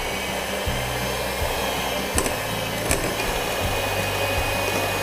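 Hand-held electric mixer running steadily, its twin beaters whisking batter in a glass bowl, with a high motor whine over an even rushing noise.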